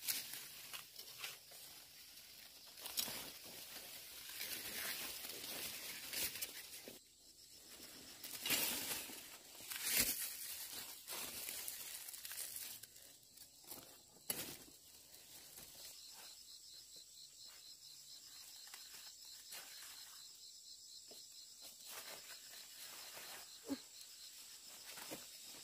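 Cucumber vines and leaves rustling and crinkling as cucumbers are picked, with a few sharp snaps in the first half. The second half is quieter, with a faint steady high whine.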